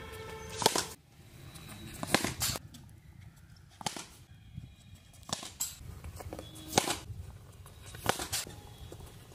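Cricket bat striking balls in a practice net: a series of sharp knocks about every one to one and a half seconds, some in quick pairs.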